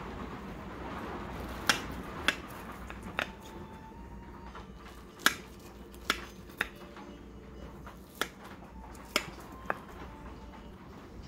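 Serrated knife slicing a baked pie in a glass pie dish, the blade clicking sharply against the glass about nine times at uneven intervals, over a steady low hum.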